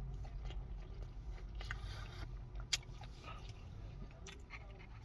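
A person biting into and chewing a smash burger: soft, irregular wet clicks of chewing, with one sharper click a little past halfway.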